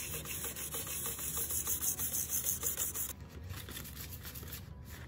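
Sandpaper rubbed over polished steel armour plate in quick back-and-forth strokes, a dense scratchy hiss that stops abruptly about three seconds in. Fainter rubbing strokes follow.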